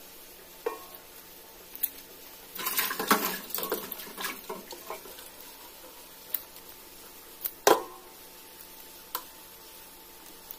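Kitchen scissors snipping through a red tilapia while it is cleaned, each cut a single sharp click; the loudest snip comes near the end. About three seconds in, a couple of seconds of water splashing in a stainless steel bowl.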